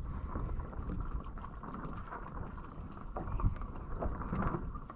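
Wind buffeting the microphone over water lapping at a small wooden boat's hull, with a dull knock about three and a half seconds in.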